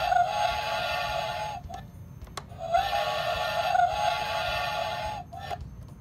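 Whistle of a plastic model steam engine sounding in two long steady blasts. The first ends about one and a half seconds in; the second starts about a second later and lasts about two and a half seconds.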